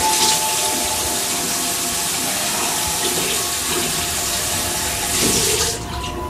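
Bathroom sink tap running, water pouring steadily into the basin, then turned off suddenly near the end.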